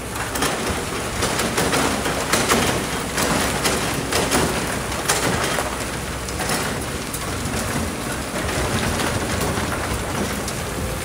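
Sand and stones pouring from a Kobelco excavator's bucket into a steel dump-truck bed, a dense rain-like hiss and clatter that starts suddenly and is loudest in the first half, over the excavator's steady diesel engine.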